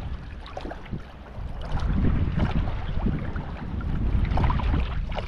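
Wind buffeting the microphone over shallow sea water lapping and sloshing. The rumble eases about a second in and picks up again a moment later.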